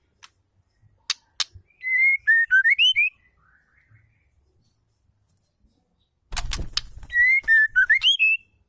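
Female white-rumped shama calling: a short whistled phrase that dips and then rises to a higher note, given twice, the second time straight after a quick rattle of sharp clicks. A few single clicks come before the first phrase. It is the kind of call used to rouse male shamas to sing.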